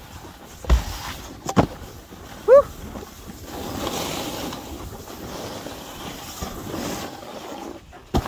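Snowboard sliding over snow with wind on the microphone, broken about a second in by a low thump and then a sharp knock, and a brief pitched squeal a second later.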